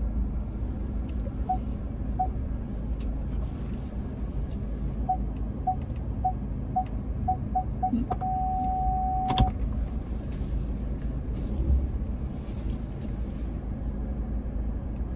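Car parking sensor beeping over the low rumble of the cabin. Two lone beeps, then beeps coming faster and faster about five seconds in, running into a steady tone for about a second as the car closes on an obstacle, which ends with a click.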